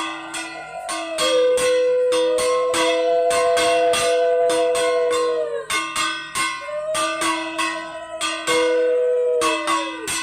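Brass puja hand bell rung quickly, about three strokes a second, over two long held notes that each dip in pitch as they end.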